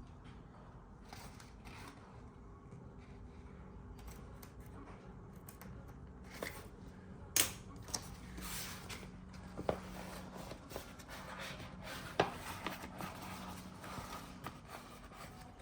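Quiet handling of stiff bag fabric with scissors: a few sharp clicks and snips over a faint steady hum.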